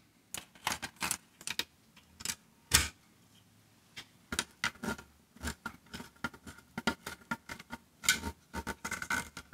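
Irregular small metallic clicks and clinks of crimped ring and spade connectors and stiff wire pigtails being handled and fitted onto a relay and a terminal block on a steel plate, with a screwdriver at a terminal-block screw near the end.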